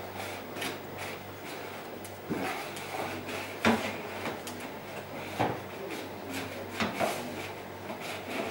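A dog eating from its bowl on a tile floor: scraping and rubbing, broken by sharp knocks about two, three and a half, five and a half and seven seconds in, as the bowl is jostled on the tiles.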